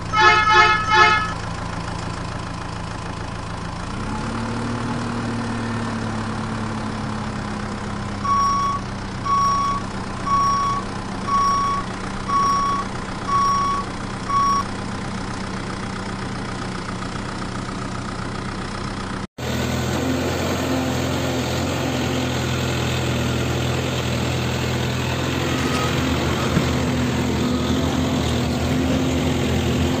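Dubbed-in truck sound effects: three short horn blasts, then a diesel truck engine running that revs up about four seconds in, with seven reversing beeps about one a second. After a sudden cut, a different engine sound runs steadily.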